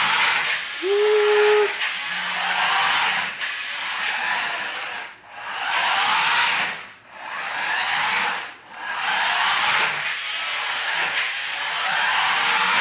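Toy remote-control car's small electric motor and gears whirring as it drives, the pitch rising and falling with the throttle. It cuts out briefly three times and starts again.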